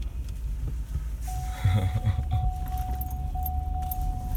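Four-wheel-drive truck driving through snow, heard from inside the cab: a steady low rumble of engine and tyres with a few knocks from bumps. About a second in a steady high tone starts up and holds, broken by short gaps.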